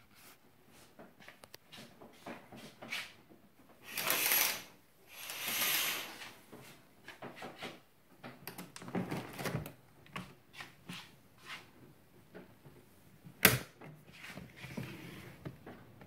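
Handling sounds of someone moving about and opening a door: two long swishing scrapes, then a run of small clicks and knocks, and one sharp loud click about three quarters of the way through.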